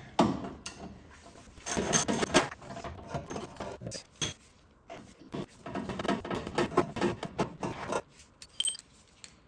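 Irregular metallic clicks and clinks of a socket wrench, driven through a long extension and swivel joint, being worked on a rear lower-wishbone nut.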